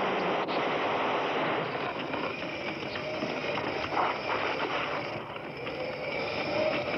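Sustained automatic gunfire on a TV soundtrack: a dense, continuous rattle of shots, with a louder burst about four seconds in.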